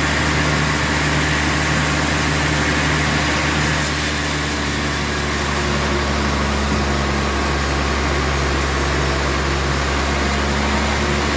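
Sawmill machinery running with a steady, continuous motor hum.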